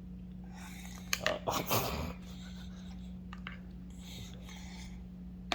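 A baby's short breathy, panting vocal noises about a second in, with a few small clicks, over a steady low electrical hum.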